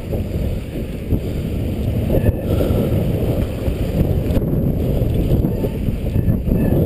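Mountain bike rolling fast over a wooden-plank boardwalk, its tyres and frame rattling in a rapid clatter, mixed with heavy wind rumble on the action-camera microphone.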